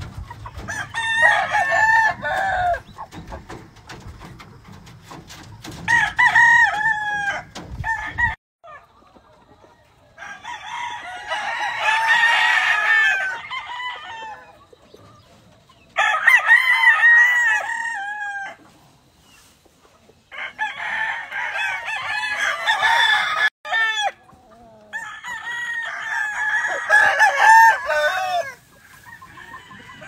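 Roosters crowing again and again, about six long crows in turn, some of them overlapping one another.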